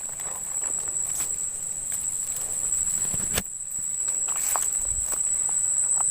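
Steady high-pitched drone of insects, with scattered short clicks and rustles and one sharper knock about three and a half seconds in.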